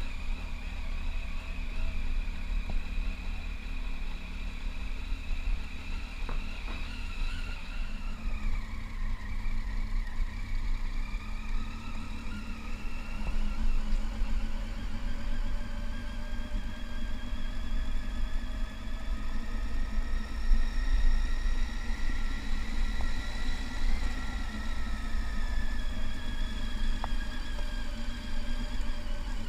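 Triumph Tiger 800's three-cylinder engine running as the motorcycle is ridden. Its whine rises and falls slowly with throttle and speed, over a steady low rumble.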